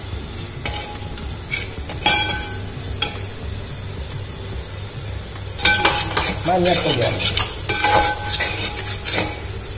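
Onion and spice masala frying in a stainless-steel pot with a steady sizzle, stirred with a steel spatula that scrapes and clinks against the metal several times, most sharply about six and eight seconds in.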